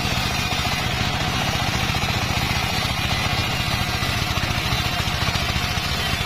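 Engine of a sawmill circular saw running steadily with a fast, even firing beat.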